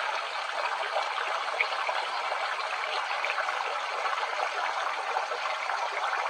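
Water flowing steadily into a pond, a constant trickling rush.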